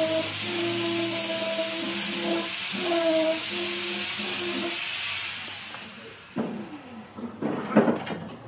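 A power tool runs with a steady hiss and hum, its pitch dipping now and then, and winds down about five seconds in; a few knocks and clatters follow.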